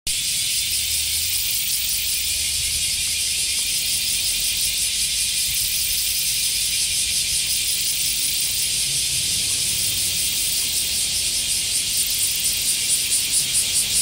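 Cicadas singing: a dense, steady, high-pitched midsummer chorus, with a pulsing that grows more marked near the end.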